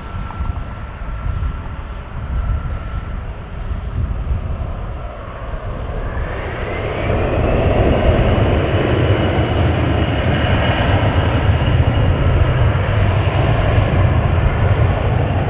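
Jet airliner engines growing louder: a whine rises about six seconds in and then holds steady as the engine noise swells. A low wind rumble on the microphone runs underneath.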